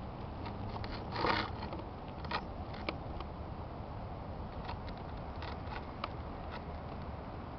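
Handling noise from a hand touching an RC model plane: scattered light clicks and a brief louder rustle about a second in, over a steady low rumble.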